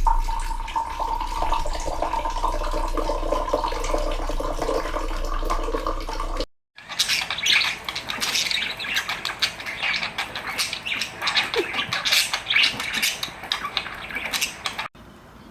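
Birds calling in two short clips split by a brief silent cut. The first has a steady low hum under wavering calls, and the second is a busy run of rapid chirps and squawks.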